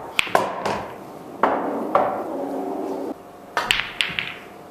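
Pool balls clacking: a cue tip hitting the cue ball and balls knocking together in a run of sharp clicks in the first second and a half, then another shot with a quick cluster of clacks a little before the end.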